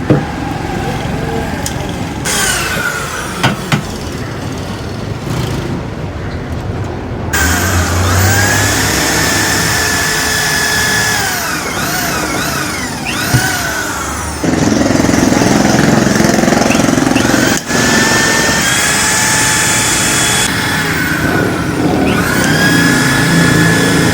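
Handheld electric power tool whining as its motor repeatedly speeds up, runs steady and winds down. The tool runs louder and harder for most of the second half.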